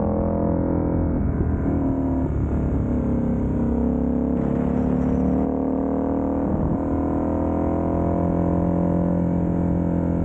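Motorcycle engine running under way, holding a steady note with changes in pitch about two and five seconds in.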